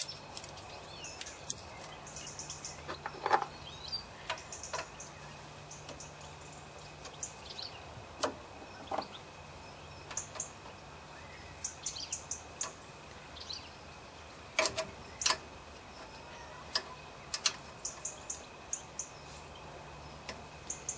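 Scattered light metal clicks and taps of a spanner and fingers working the armature mounting bolts on a Briggs & Stratton lawnmower engine, a few of them sharper than the rest. Birds chirp in the background.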